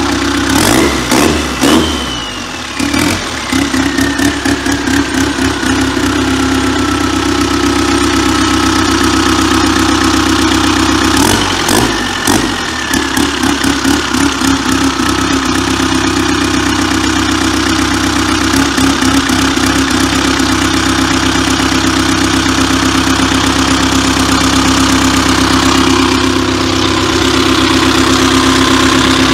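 Modified four-cylinder turbo-diesel engine running on a stand, idling steadily. About a second in and again around eleven seconds it is revved briefly, and a turbo whistle rises, then winds down slowly over several seconds.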